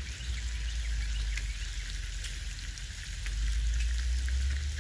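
Lakeshore ambience: a steady low rumble that swells briefly past the middle, under a faint crackling hiss of tiny ticks.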